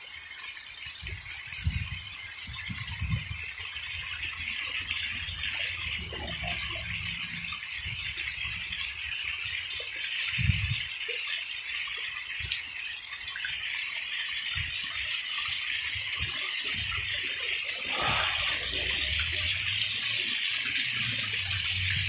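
Fountain water jets splashing steadily into a stone basin, a continuous hissing rush that grows a little louder toward the end, with occasional low rumbles.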